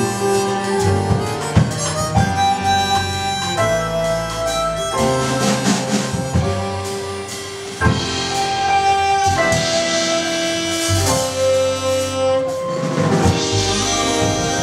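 Live small-group jazz: a harmonica plays the lead melody in held, changing notes over piano, double bass and drum kit, with a sharp drum hit about halfway through.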